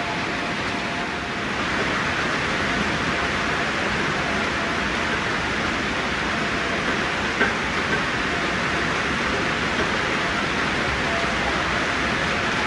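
Steady rain falling, an even hiss with no let-up, and a single brief tick about seven and a half seconds in.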